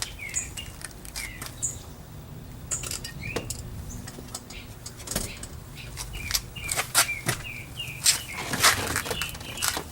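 Small birds chirping repeatedly, with scattered sharp clicks and taps.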